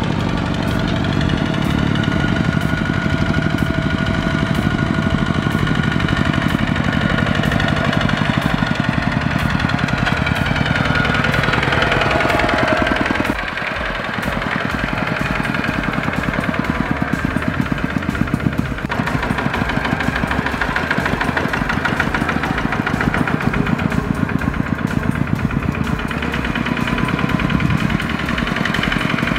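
Single-cylinder diesel engine of a two-wheel walking tractor chugging with a fast, even knock as it hauls a trailer through deep mud. The sound dips and changes abruptly about halfway through.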